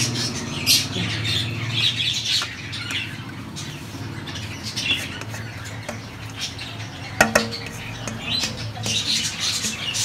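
Pet budgies chirping and squawking in many short high calls, with a dish clinking sharply once about seven seconds in.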